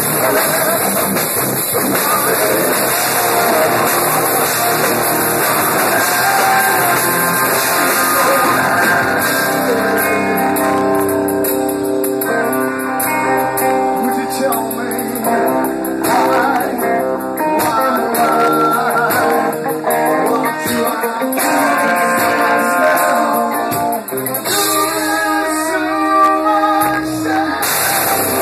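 Live rock band playing: a man singing into the microphone over guitar.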